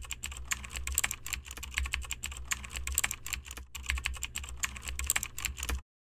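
Typing sound effect: rapid keyboard keystrokes that stop abruptly near the end.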